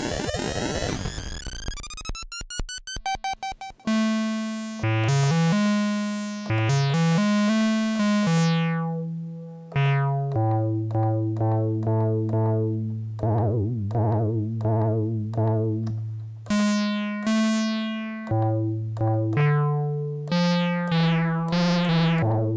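Moog Werkstatt-01 analog synthesizer. For the first few seconds it makes a warbling, clanging tone with sweeping pitches and a pulse that speeds up: its oscillator frequency-modulating itself at audio rate. Then single bass notes are played on its button keys, each starting bright and fading as the envelope closes the filter.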